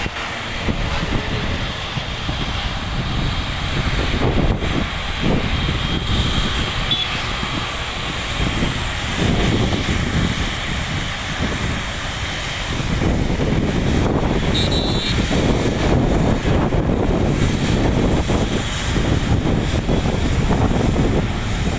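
Boeing 777 jet engines running as the airliner moves on the runway: a steady, noisy rumble that gets louder a little over halfway through, with wind buffeting the microphone.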